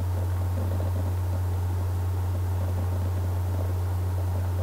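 Steady low hum with faint hiss, unchanging throughout: the background noise of the narrator's recording setup.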